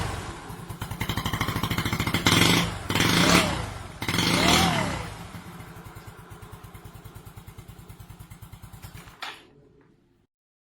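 Yamaha Mio scooter's small single-cylinder four-stroke engine running through an MTRT V8 aftermarket exhaust pipe. It is revved in a few quick blips about two to five seconds in, then settles back to an even idle pulse and shuts off near the end.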